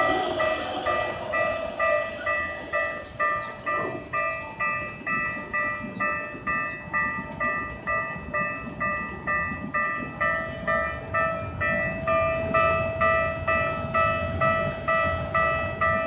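Japanese railway level-crossing warning bell ringing steadily at about two strokes a second, its electronic chime repeating in two tones. For the first few seconds a passing train's running noise sounds under it and fades away.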